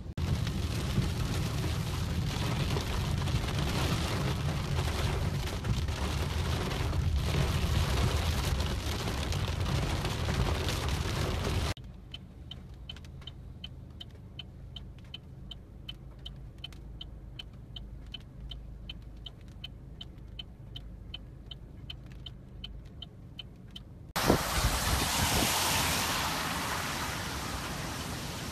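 Strong storm wind buffeting the microphone for about the first twelve seconds. It cuts suddenly to a much quieter stretch with a faint, regular high chirping about two or three times a second. Near the end comes the hiss and spray of a van's tyres on a wet, flooded road, starting suddenly and fading.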